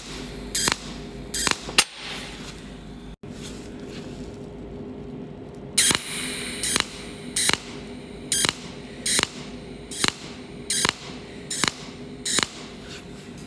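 Cold welding machine firing its arc in short pulses, each a brief sharp zap, while filler wire is fed to fill sand holes in a weld seam. There are three zaps in the first two seconds, then after a pause a steady run of them about 0.8 s apart, over a steady low hum.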